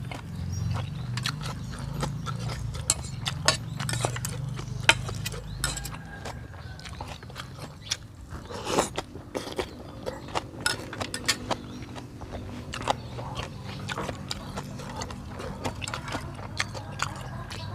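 Close-up eating sounds of a person eating noodle soup: chewing and biting with many small, quick mouth clicks. There is a louder, longer sound about nine seconds in.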